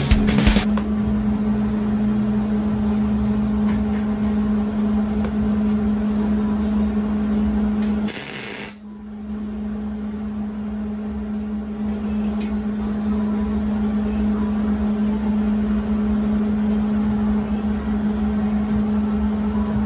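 A steady, even machine hum holding one pitch, with a brief break about 8 seconds in before it resumes.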